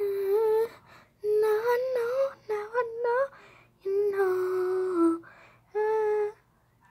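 A young girl singing a wordless tune in five short phrases of held notes, the longest near the middle sliding down in pitch at its end.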